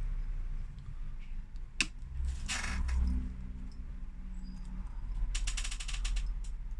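Small metal parts and hand tools clicking and clinking on a workbench during phone reassembly: a sharp click about two seconds in, a brief scrape just after, and a fast run of fine clicks near the end.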